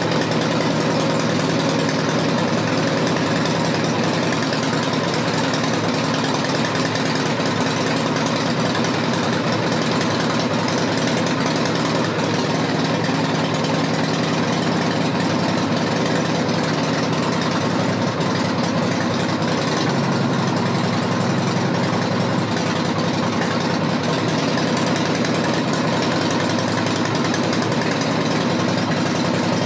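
Harley-Davidson Fat Boy's 1340 cc Evolution V-twin idling steadily while it warms up, on its first run after a top-end rebuild.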